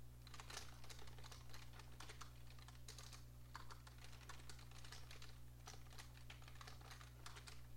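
Faint typing on a computer keyboard: irregular runs of quick key clicks, over a low steady hum.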